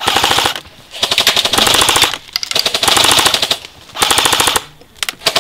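Airsoft rifles firing on full auto in four rapid bursts, each about half a second to a second long, followed by a short burst near the end: a fast, even stream of shots.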